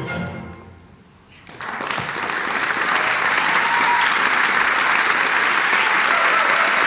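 The last notes of a tango song recording die away, and after a brief hush an audience starts applauding about a second and a half in, clapping steadily from then on.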